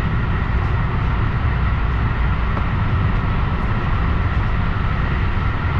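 Steady running noise of a moving electric passenger train heard from inside the carriage: a deep even rumble of wheels on rails with a faint steady whine above it.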